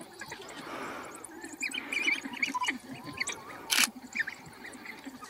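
A pack of African wild dogs twittering and squealing in short, high chirps that come in quick runs, with one sharp click partway through.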